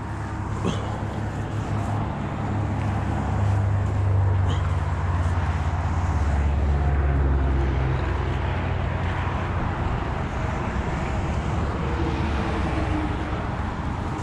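Road traffic on the bridge: a steady hiss with a low engine rumble that builds over the first few seconds, is heaviest in the middle and then eases off as a vehicle passes.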